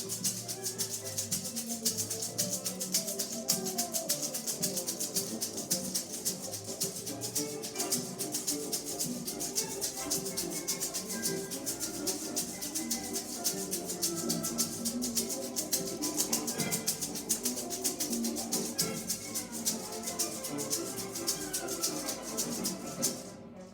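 A maraca shaken in a quick, steady rhythm along with recorded instrumental music. The shaking stops just before the end.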